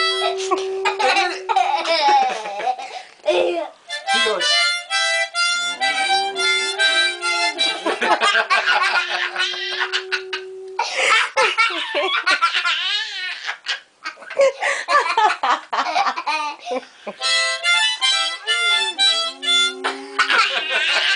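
Harmonica played in short bursts while a boxer dog howls along in long, drawn-out howls. Adults and a young child laugh hard in between.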